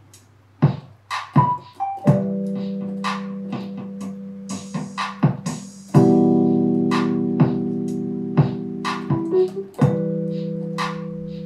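Digital stage piano played: three full chords struck and held, each slowly fading, with short melody notes and sharp percussive hits between them.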